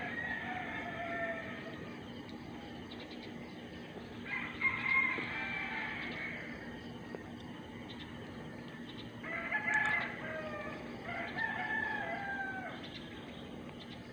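Rooster crowing: three long crows, one at the start, one about four seconds in and a longer one about nine seconds in, each falling in pitch at the end.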